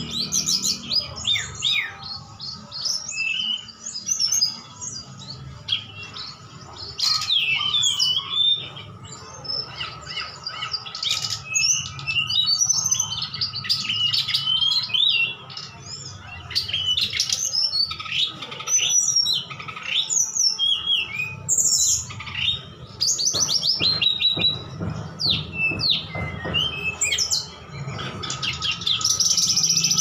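Caged songbirds, a brown-chested jungle flycatcher (SRDC) and a blue tledekan gunung flycatcher, singing against each other in a song duel. It is a dense run of quick, varied chirps and whistled slurs that rise and fall, with hardly a pause.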